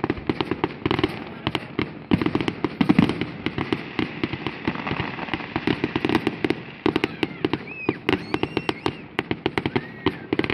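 Fireworks going off in a rapid, continuous barrage of cracks and pops, many bangs a second.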